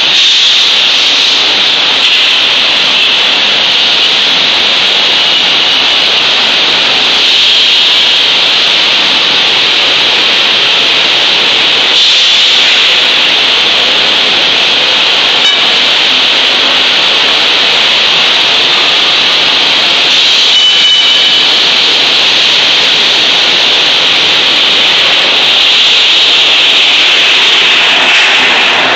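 Steady, loud foundry machinery noise from a sand-casting moulding line: a dense, even hiss with no clear rhythm.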